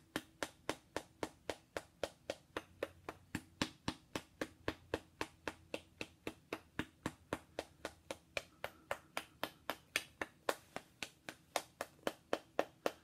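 Rapid, even tapping of a thin metal rod against a small acupuncture model figure, about four sharp taps a second.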